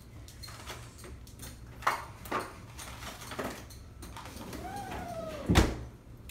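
Plastic hand spray bottle squirting water onto hair in a few short hisses, over a low steady hum. Near the end comes a brief whine that rises and falls, then a single loud thump.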